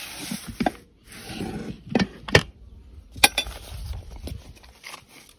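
Handling noise close to the microphone: rustling, with a few sharp clicks and knocks about two seconds in and a louder knock a little after three seconds.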